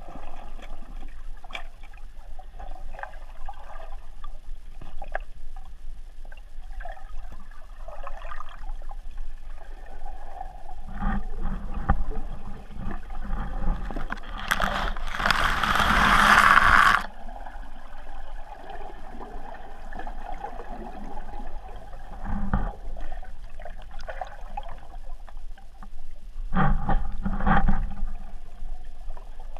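Muffled underwater sound from a submerged camera: water moving, with scattered clicks and low knocks from handling. A loud rushing noise lasts about two seconds, about halfway through.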